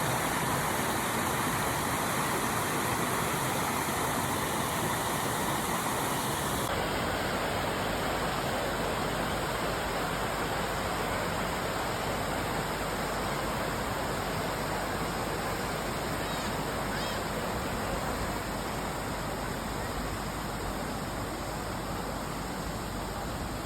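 Steady rush of water pouring over a waterfall, an even, unbroken noise; its tone changes abruptly about seven seconds in.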